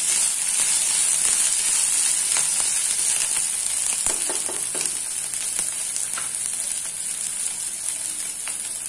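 Onions, peanuts, green chillies and curry leaves sizzling in a little hot oil in a pan, with a wooden spatula stirring and scraping through them in scattered clicks. The sizzle fades a little toward the end as the stirring stops.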